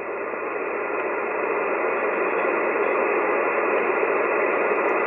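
Shortwave receiver hiss on the 20-metre amateur band in upper-sideband mode, limited to the narrow SSB passband. This is the band noise heard between transmissions when no strong station is on frequency. It swells over the first couple of seconds, then holds steady.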